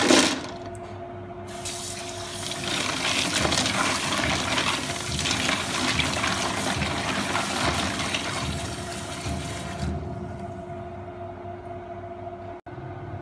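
Clams tipped from a plastic box into a plastic colander in a sink, then tap water running into the colander while hands rub and rinse the clams in it. The running water stops about ten seconds in.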